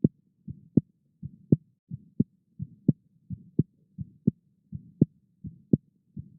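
Pulse beats heard through a stethoscope, at about 83 a minute. Each beat is a soft low thud followed about a third of a second later by a sharper, louder knock.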